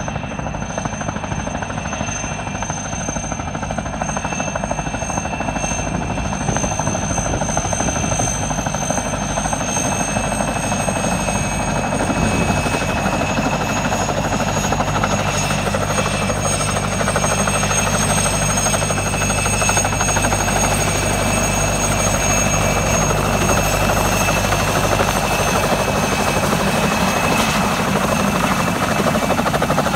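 Russian helicopter approaching and coming in to land, its rotor beat and high turbine whine growing steadily louder as it nears.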